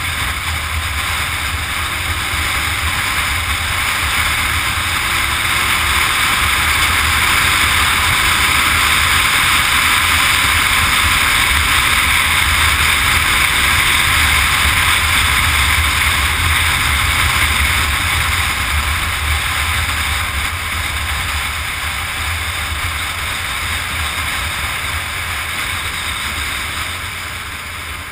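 Motorcycle riding at speed: a steady rush of wind over the camera microphone with a low engine rumble underneath, swelling toward the middle and easing off near the end.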